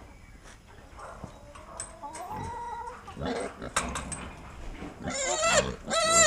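Pigs squealing several times, hungry and begging for feed; the loudest, highest squeals come near the end.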